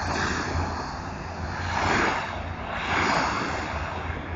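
Truck-mounted pressure washer spraying concrete pavement at about 3,000 psi: a hiss that swells and fades as the wand sweeps back and forth, over the steady drone of the machine's engine.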